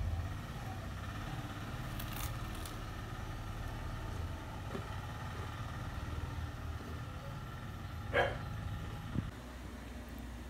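A steady low mechanical hum, with a short higher-pitched sound about eight seconds in and a click a second later, after which the hum eases slightly.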